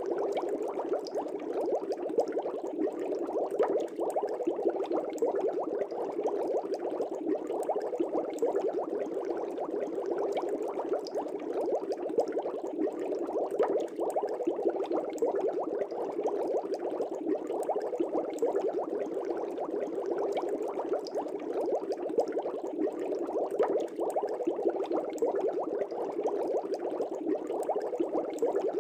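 Aquarium air bubbles rising through water: a steady, dense bubbling that never lets up, mostly low and full in tone.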